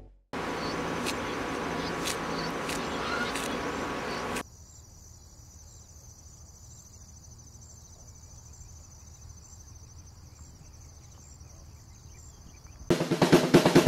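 Insects chirring steadily in a high band, under a louder even hiss for the first four seconds or so. Music starts near the end.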